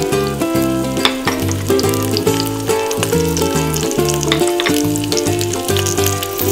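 Ginger, garlic, star anise, cloves and cinnamon sizzling in hot oil in a pot, a fine steady crackle. Background music with a rhythmic bass line plays under it.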